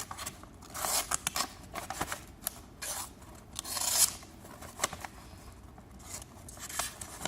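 A freshly sharpened kitchen knife slicing through notebook paper in several short rasping strokes. This is a paper-cutting test of the new edge.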